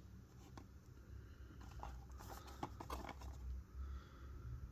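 Faint handling noise: light scattered clicks and taps from a boxed 1/64 diecast model car's packaging being handled, over a low steady hum.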